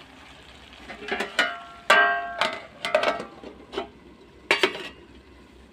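Steel plate being set on a kadai as a lid, metal on metal: a few clinks, a ringing clang about two seconds in, then lighter clinks.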